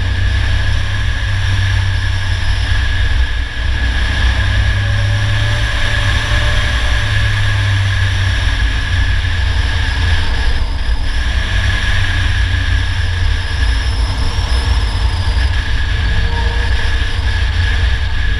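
Polaris Slingshot three-wheeler driving at a steady pace, its engine giving a low drone under steady wind rush and road noise on a hood-mounted camera.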